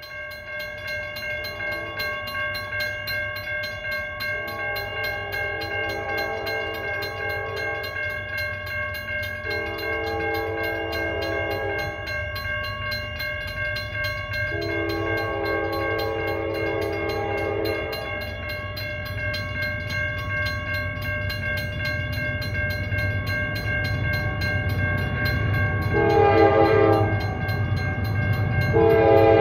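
Norfolk Southern freight locomotive's air horn sounding for the crossing: three long blasts, then a short blast and another long one near the end. Under it the grade-crossing warning bells ring on, and the low rumble of the approaching train grows louder toward the end.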